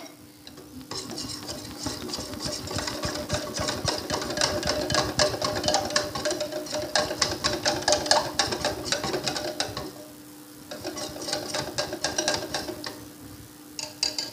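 Wire whisk beating a thin flour-and-water batter in a glass bowl, its wires clicking rapidly against the glass. The whisking stops for a moment about ten seconds in, then starts again briefly.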